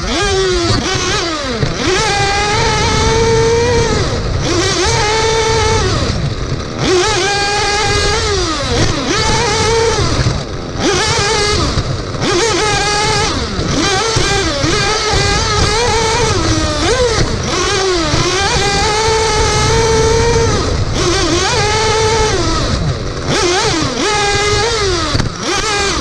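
The small two-stroke nitro glow engine of a 1/8-scale RC buggy, heard on board, revving hard and falling back again and again as the throttle is worked through the corners. It makes a high-pitched buzz that rises and dips every second or two over a steady low rumble.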